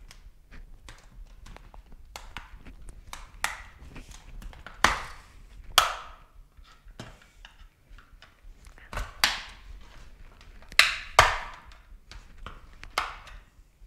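Plastic case of a Sirius XM satellite radio receiver being pried open with a flat-blade screwdriver: a run of sharp clicks and creaks, with several louder cracks as the snap-fit seams give way.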